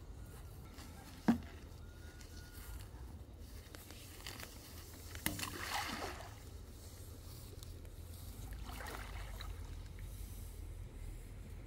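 Pump suction hose thrown into a shallow pond: a splash about five seconds in, then a softer slosh a few seconds later. A single sharp knock comes about a second in.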